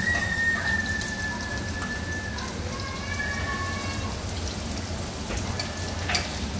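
Goat udder pieces deep-frying in a pot of hot oil: a steady sizzle with spitting, crackling oil.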